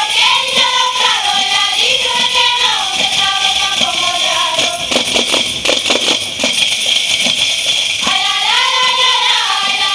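Women singing a Galician muiñeira melody in unison over pandeiretas (Galician tambourines) beaten in a steady rhythm, their jingles ringing throughout. Around the middle the singing falls away and the tambourines carry on alone, and the voices come back in about eight seconds in.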